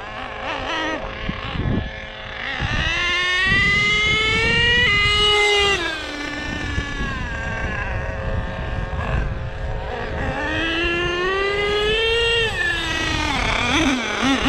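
Small nitro engine of an HPI Savage X 4.6 RC monster truck revving up twice, each run a rising whine that climbs for a couple of seconds and then falls away; the pitch drops sharply about five seconds in.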